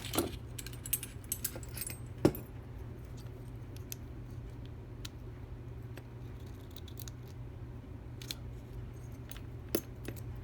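Small metal tools and padlock parts clicking and tapping as the lock is taken apart: a quick cluster of light metallic clicks, one sharper knock about two seconds in, then scattered faint ticks and one more click near the end. A steady low hum lies underneath.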